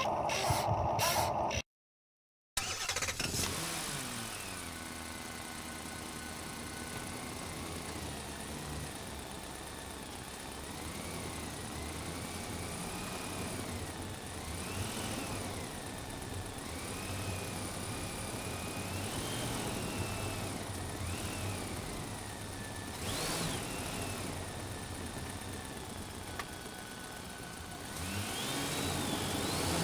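Electric motors of an RC model excavator whining, the pitch rising and falling again and again as it moves, over a steady hum; the sound breaks off for a moment about two seconds in.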